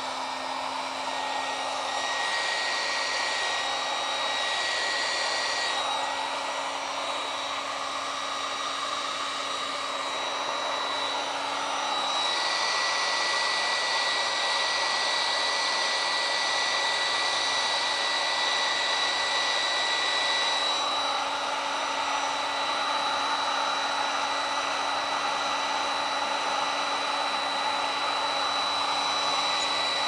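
Electric heat gun, a Harbor Freight unit of about 1600 watts, running steadily: a continuous blowing rush with a motor hum and a thin whistle that comes and goes. It is blowing hot air to shrink heat-shrink tubing over a PL-259 coax connector.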